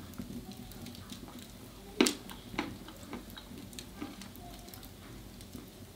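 A hazelnut cracking sharply about two seconds in, followed by a second, smaller crack and a few fainter clicks and crunches.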